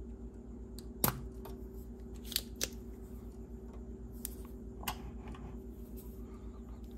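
Spring-loaded solder sucker (desoldering pump) firing with a sharp snap about a second in, drawing molten solder off a through-hole circuit-board joint. Several lighter clicks follow as the pump is handled. A steady low hum runs underneath.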